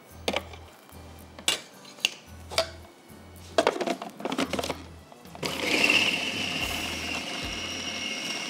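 A few sharp clicks and knocks as the food processor is handled, then about five and a half seconds in its motor starts and runs steadily, chopping the chicken mince mixture for kebabs.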